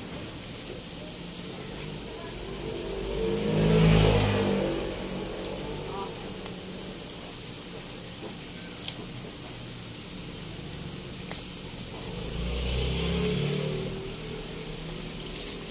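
Chopped pork innards simmering in their juices in a wok, with a steady sizzle. Twice a motor vehicle passes nearby, swelling and fading about four seconds in and again near the end, and there is a single sharp click about nine seconds in.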